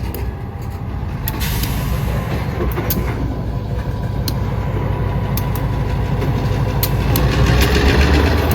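Diesel locomotive's engine rumbling as a short freight train approaches in reverse, growing steadily louder, with scattered sharp clicks.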